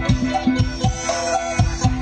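Thai Isan folk dance music: a steady drum beat of about four strokes a second under a sustained melody line.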